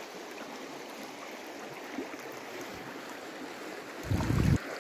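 Steady rush of river current running over a shallow riffle, with a brief loud low rumble about four seconds in.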